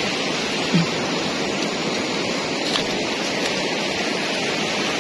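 Flowing river water, a steady even rush.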